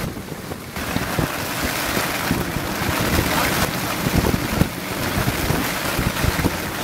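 Strong wind buffeting the microphone in uneven gusts, over the rushing noise of the sea around a sailboat under way.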